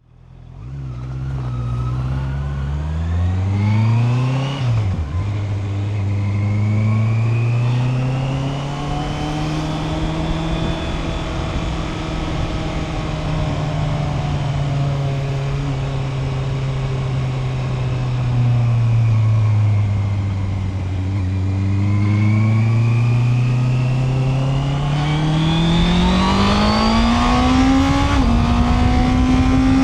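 Honda CB650R's inline-four engine pulling away, its note climbing then dropping sharply about five seconds in as it shifts up. The engine note then rises and eases with the throttle for a while and climbs steadily again toward the end, with a small dip in pitch near the end.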